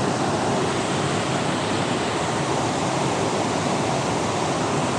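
Steady, full rush of a large waterfall heard close by, an even roar of falling water and spray.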